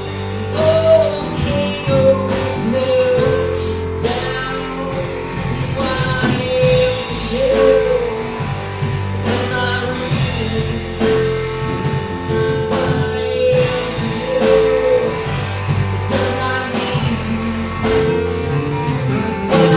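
A rock song: a voice singing over guitar, bass and a drum kit keeping a steady beat.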